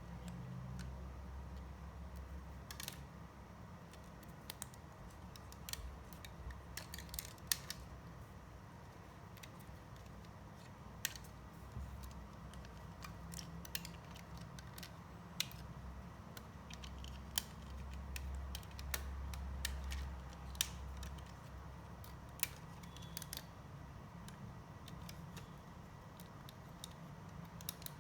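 Scattered small clicks and taps of plastic Lego parts being handled as rubber bands are fitted to a Lego Glock 17 model, over a low steady hum.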